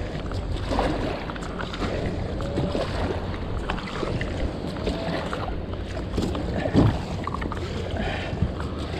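Steady wind rumbling on the microphone over sea water around a fishing kayak, with faint voices in the distance.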